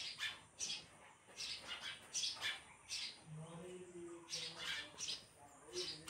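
Sparrow chirping: a dozen or so short, sharp chirps in quick, uneven succession, with a faint low hum underneath in the second half.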